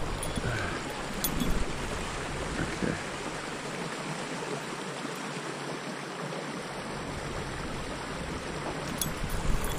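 Small trout stream flowing steadily, an even hiss of moving water, with some low wind rumble on the microphone in the first few seconds.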